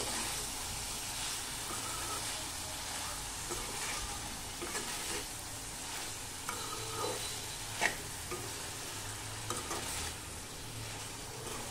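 Bitter gourd rings being stirred with a spatula through tomato masala in a kadhai, sizzling steadily, with brief knocks and scrapes of the spatula against the pan every second or so.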